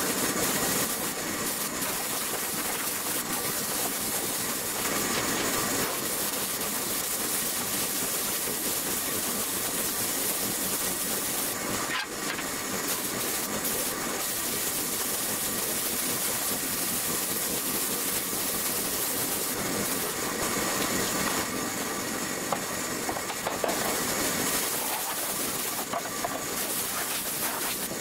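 Compressed-air gravity-feed spray gun with a 1.5 mm nozzle spraying epoxy primer, a steady hiss of air and atomised primer with a few brief dips.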